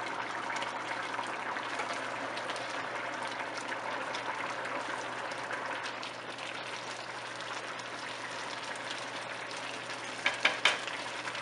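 Rice boiling hard in yakhni (mutton stock), a steady bubbling hiss as the pot is brought to a full boil before dum. Late on a spatula stirs the rice, with a few sharp scrapes against the wok near the end.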